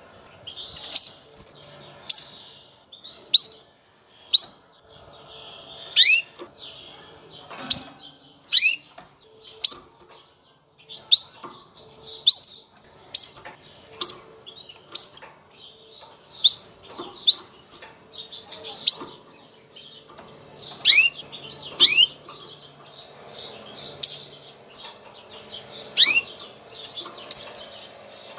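Female canary giving its mating call: short, sharp rising chirps repeated roughly once a second in an unbroken series.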